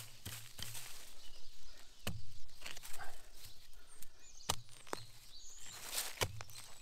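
Irregular snaps and crackles of twigs and dry leaf litter on a forest floor, like slow footsteps or branches being handled, with a few faint bird chirps in the background.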